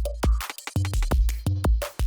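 Electronic background music with a heavy drum-machine beat: deep bass kicks and sharp snare-like hits.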